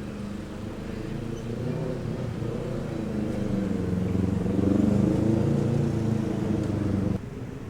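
A motor vehicle engine running and growing louder over the first five seconds or so, then cutting off suddenly about seven seconds in.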